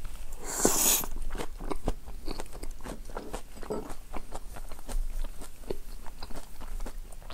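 Close-miked eating of okonomiyaki: a loud bite about half a second in, then steady wet chewing with many small crisp mouth clicks.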